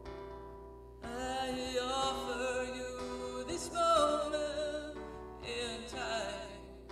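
Background music: a worship song with a singer's voice wavering over sustained instrumental chords.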